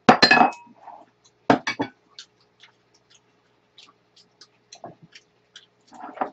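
Eating-table clatter: a loud clink and rattle of utensils against dishes right at the start, a couple of sharp clinks about a second and a half in, then scattered light taps and clicks of chopsticks and a ladle on bowls and a metal pot.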